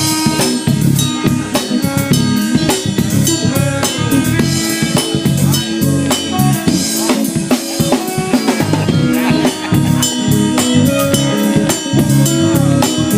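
A live band playing at a sound check, with the drum kit to the fore: quick, steady bass drum, snare and rimshot hits over held notes from pitched instruments.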